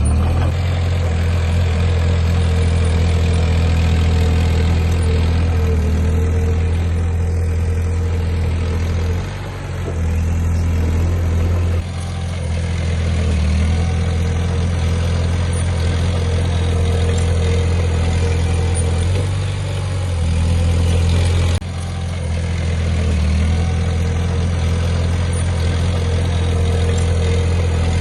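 Heavy diesel engine of an earthmoving machine running steadily with a deep, even hum, the sound changing abruptly about 12 and 22 seconds in.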